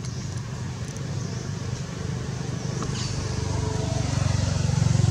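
A motor vehicle's engine running, a steady low hum that grows louder over the last couple of seconds as it comes closer.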